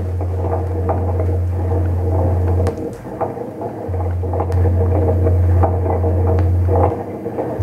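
A loud, low electric hum that cuts out for about a second roughly three seconds in, then returns, with a brief dip near the end. Underneath runs a constant crackling texture.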